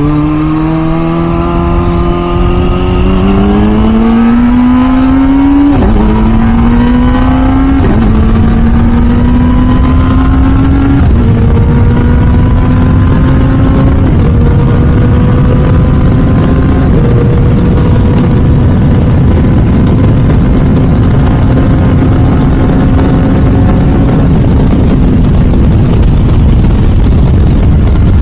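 Kawasaki ZX-4RR's 399 cc inline-four accelerating through the gears: its pitch climbs and drops sharply at each of about five upshifts, then holds nearly steady at speed. A steady rush of wind and road noise runs underneath.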